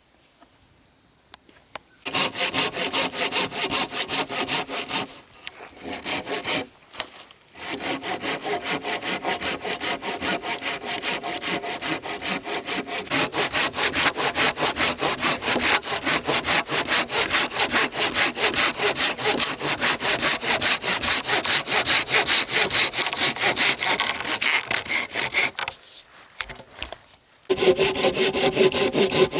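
Hand saw cutting through wood in rapid, even back-and-forth strokes. It starts about two seconds in, and the sawing pauses briefly twice early on and once near the end.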